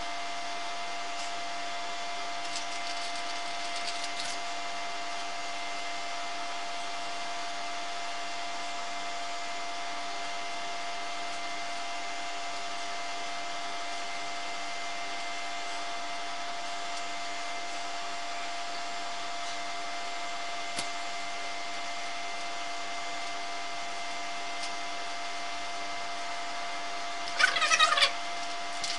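Steady hum with several fixed tones, with faint light ticks from hands working silicone dough. Near the end, a brief loud crinkling of a plastic starch packet as starch is shaken out of it.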